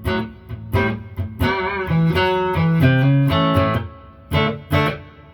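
Electric guitar chords played through a valve guitar amplifier with a reverb pedal in front, several chords struck and left to ring and fade, then a few short stabs near the end. Between chords the amp is dead quiet.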